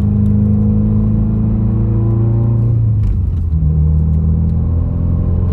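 2020 Subaru WRX's turbocharged flat-four running at part throttle while cruising, heard from inside the cabin. Its note sags slightly, then changes pitch about three seconds in.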